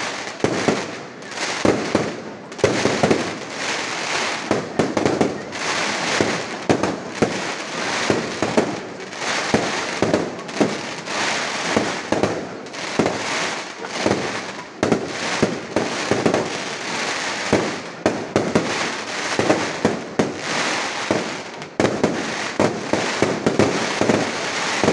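Fireworks display: aerial shells bursting overhead in a rapid, continuous run of sharp bangs, several a second.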